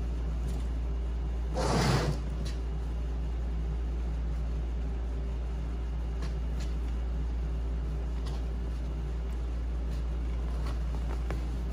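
Steady low background hum. About two seconds in there is a brief rustling scrape as the burlap-covered wooden seat frame with coil springs is shifted onto the bench, and a few faint light clicks follow.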